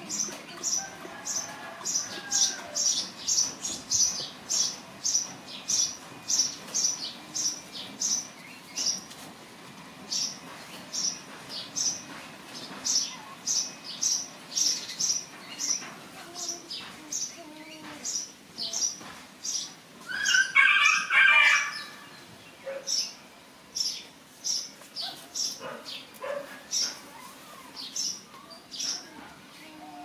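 High-pitched chirps repeated about two to three times a second, pausing briefly now and then, with a louder, lower burst of chirping about twenty seconds in.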